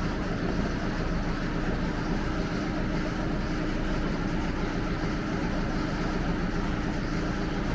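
Steady machine hum with a few held low tones and an even hiss over it, unchanging throughout.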